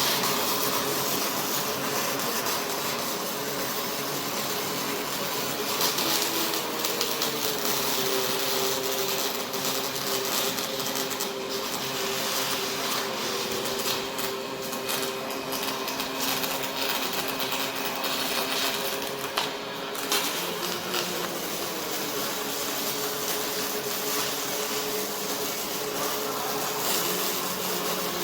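Robotic welding line running: a steady hiss and crackle with a humming motor tone that shifts pitch twice.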